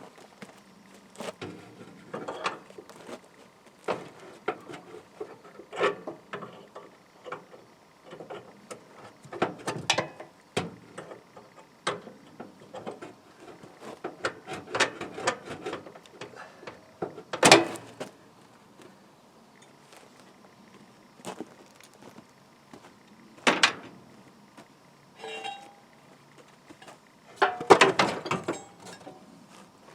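Irregular clanks, clicks and rattles of hand tools and metal parts as a riding lawnmower is taken apart, with a few louder sharp knocks, the loudest a little past halfway.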